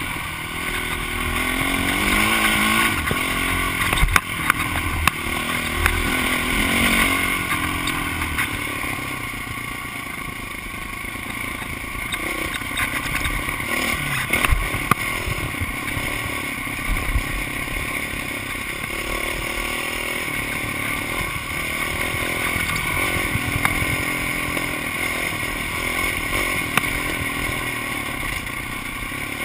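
Honda CRF450X's single-cylinder four-stroke engine pulling the dirt bike along a rough trail, its pitch rising and falling as the throttle opens and closes. Sharp knocks and clatter from the bike over the bumps come a few times, loudest about four seconds in.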